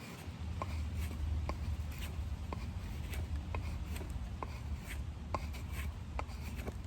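Scandi-ground carbon-steel fixed-blade knife shaving thin curls off a stick of wood, in quick repeated strokes about twice a second, each stroke ending in a short scrape.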